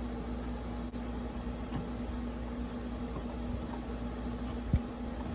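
Steady low background hum with a faint constant tone, a few faint ticks and one sharp click a little before the end.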